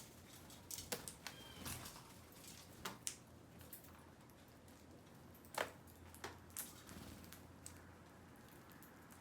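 Faint, irregular taps and clicks of birds pecking at food, about nine in all and unevenly spaced, the loudest about halfway through.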